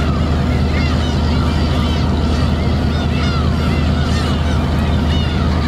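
A flock of gulls calling over one another, many short overlapping cries, over the steady low hum of a fishing boat's engine.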